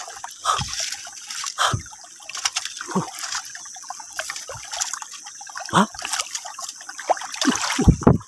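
Shallow muddy water splashing and sloshing as a wire-mesh scoop net is worked through it. The splashes come irregularly, one every second or two, with a quick cluster of stronger ones near the end.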